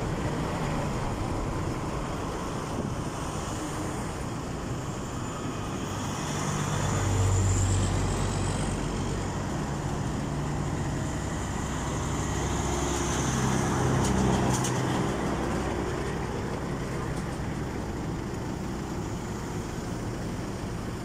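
Road traffic: a steady rush of tyres and engines, with a vehicle passing close about a third of the way in and another a little past the middle, each growing louder and then fading.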